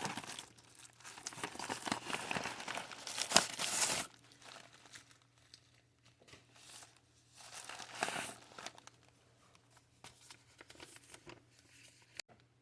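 Packaging of a bead subscription box being opened and handled: crinkling and tearing, loudest for the first four seconds, then softer rustling and a single click near the end.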